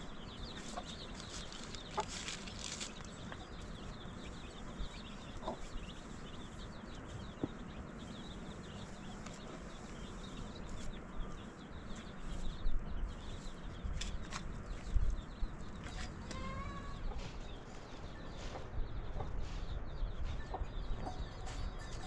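Chickens clucking, with short chirps and calls throughout. About halfway through comes louder rustling and a few knocks, as a plastic sheet is spread over a rack of sticks.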